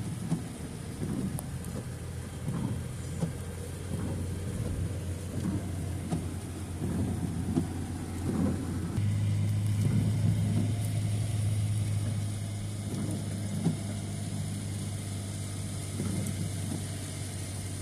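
Car driving in the rain: a steady engine and road drone that gets louder about nine seconds in, with scattered low thumps.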